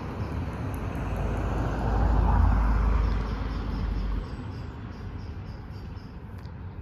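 Low rumble of road traffic. It swells for a couple of seconds as a vehicle passes nearby, then falls back to a steady background hum.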